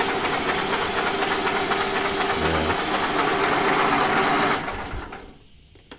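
Cub Cadet tractor's V-twin engine spun over by its electric starter with both spark plugs out, cranking fast and even, then stopping about four and a half seconds in. The engine now turns over freely: the gasoline that had hydrolocked the cylinders is being pushed out through the open spark plug holes.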